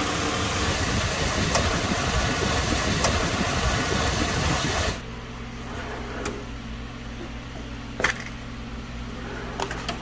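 2002 GMC Sierra engine idling with the AC compressor clutch engaged and the system running. About five seconds in, the sound drops suddenly to a quieter steady hum, with a couple of faint clicks.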